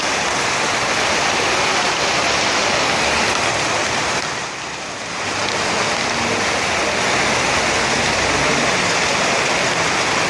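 Heavy rain falling in a steady downpour, easing briefly about halfway through before coming back.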